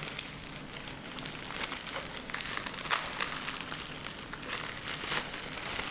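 Crinkling and crackling of a small mailing packet being torn open and crumpled by hand, a dense run of small snaps and rustles.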